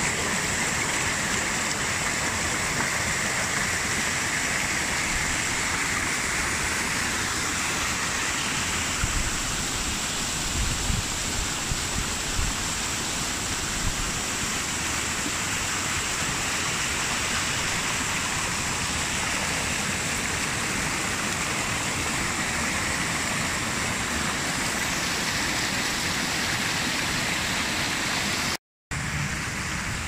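Mountain waterfall rushing: a steady, dense hiss of falling water. It breaks off for an instant near the end and comes back slightly quieter.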